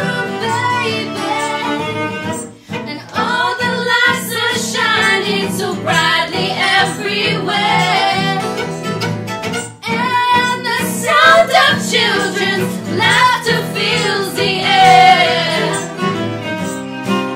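Live acoustic music: several voices singing together over strummed acoustic guitar and violin, with short breaks between phrases.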